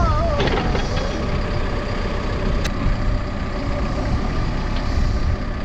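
Caterpillar 420F2 backhoe loader's diesel engine running steadily with a heavy low rumble, and one sharp click a little past halfway.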